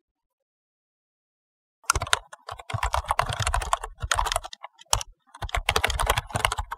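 Rapid keyboard typing: fast runs of key clicks starting about two seconds in, with two short pauses near the end.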